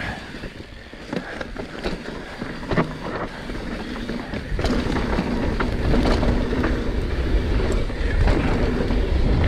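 Mountain bike riding down a rocky trail: tyres on dirt and rock with scattered knocks and rattles from the bike. Wind rush on the microphone gets louder from about halfway through.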